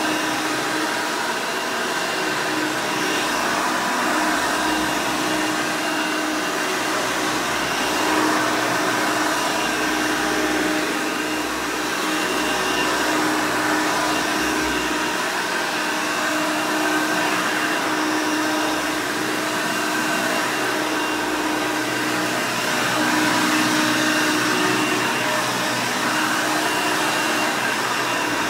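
Vintage 1991 Hoover Elite 200 (U4467) upright vacuum running, its direct-air motor and brush roll giving a loud, steady rushing whine with a few fixed tones over the airflow.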